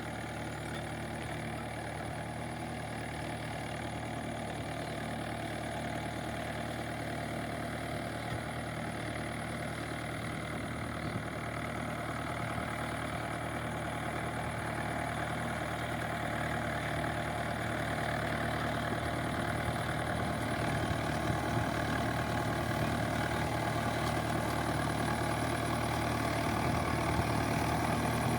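Diesel engine of a Mahindra 475 DI tractor running steadily, growing gradually louder.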